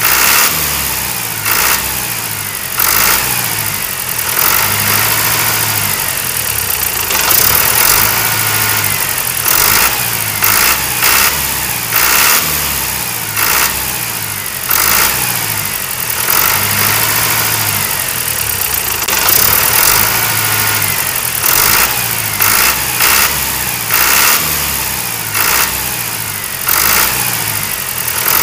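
Tractor engine running, with short louder revs every second or two in a pattern that repeats like a loop.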